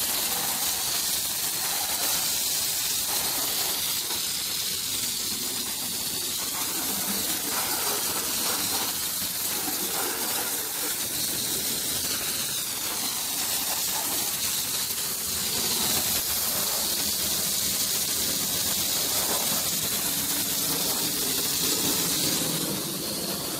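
Steady hiss of a water spray jet striking a car's body panels as the car is rinsed down.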